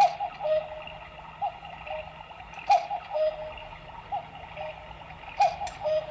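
Black Forest cuckoo clock calling "cuckoo": a two-note call, a higher note then a lower one, sounding five times about every second and a half, with a sharp click on some of the calls.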